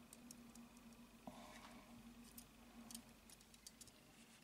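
Near silence, with scattered faint light clicks of the small steel hammer parts of a Smith & Wesson 22 Victory pistol being worked into the frame by hand.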